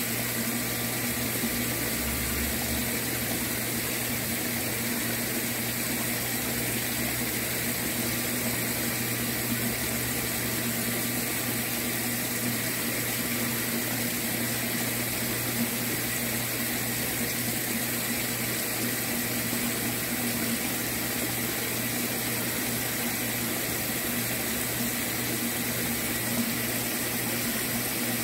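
Water in a tilapia tank churning steadily, with a steady low hum from a running pump.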